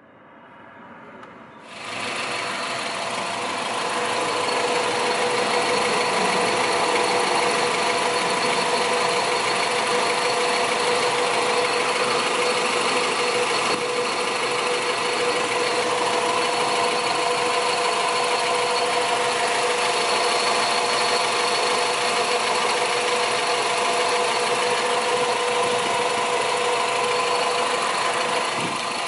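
Honda B18C1 1.8-litre four-cylinder engine idling steadily, heard from under the car beside the spinning crank pulley and accessory belt. It comes in sharply about two seconds in and then holds an even running whir with a few steady tones.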